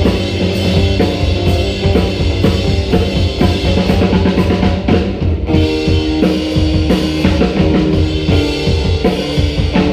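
A live band playing an instrumental passage: a drum kit keeps a steady beat on bass drum and snare under electric keyboard and acoustic guitar. About halfway through, sustained chords come in over the beat.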